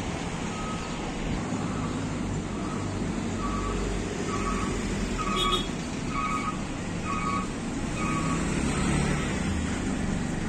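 A vehicle's reversing alarm beeping about once a second, with the low rumble of its engine running underneath.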